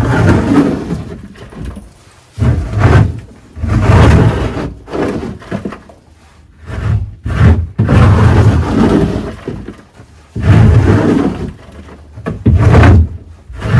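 A homemade scraper dragged again and again across a chicken coop's poop board, pushing droppings over the edge into a bucket: a run of scraping strokes, each about a second long, with short pauses between.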